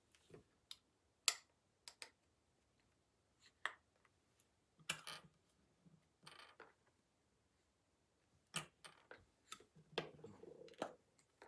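Scattered clicks and knocks of plastic Lego Technic parts being handled and fitted together on a cross axle, at irregular intervals.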